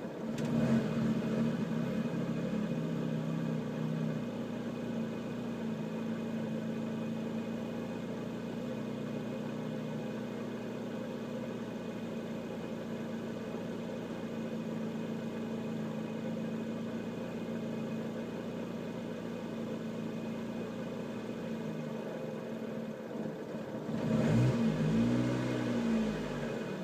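2011 Lotus Exige's 1.8-litre Toyota four-cylinder idling with no throttle input, mostly steady; about 24 seconds in the idle surges, the revs rising and falling back on their own: a rough, hunting idle.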